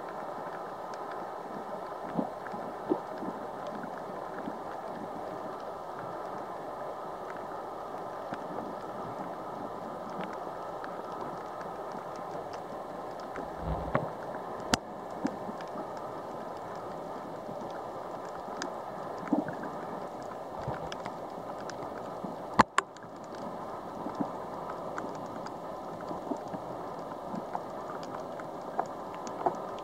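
Underwater ambience picked up by a camera submerged on a coral reef: a steady muffled hiss scattered with small clicks and crackles, and one sharp knock about twenty-two seconds in.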